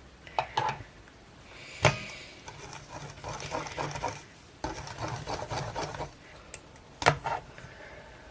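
Kitchen handling sounds: a few sharp knocks of utensils against dishes, and two stretches of quick, uneven scraping or stirring in a bowl.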